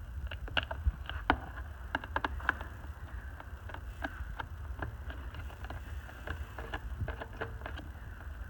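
Hand screwdriver driving small screws through a plastic handle into a wet/dry vacuum's top: irregular light clicks and ticks, several a second, over a low rumble.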